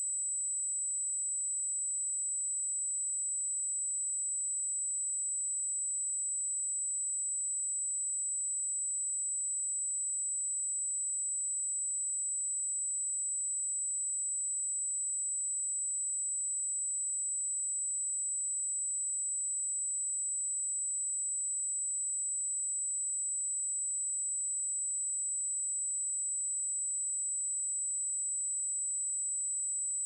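A pure 7858 Hz sine-wave test tone, a single steady high-pitched whistle held at a constant level.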